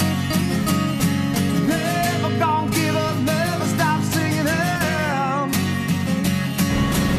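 Background music: a song with acoustic guitar over a steady beat, with a singing voice carrying the melody through the middle.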